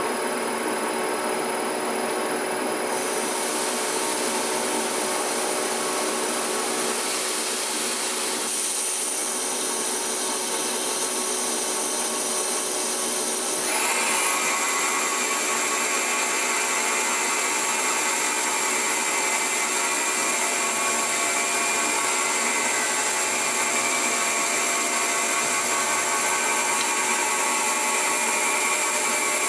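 Milling machine running and cutting a Volkswagen five-cylinder main bearing cap: a steady machining whine and hiss that changes tone a few times, with a brief rising glide about fourteen seconds in.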